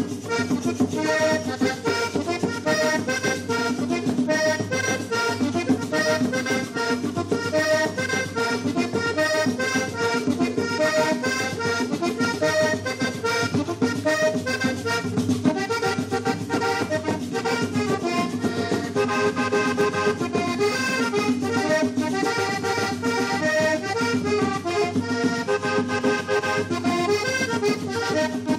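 Accordion-led traditional Panamanian dance music (música típica) playing continuously with a steady beat.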